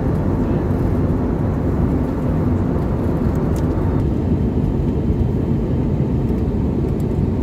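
Steady cabin noise of a jet airliner in flight: the low drone of the engines and the rush of air past the fuselage. The hissier upper part of the noise drops away abruptly about four seconds in.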